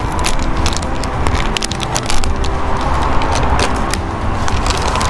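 Plastic snack bag of blue corn tortilla chips crinkling and crackling as it is worked open by hand, a dense run of sharp, irregular crackles.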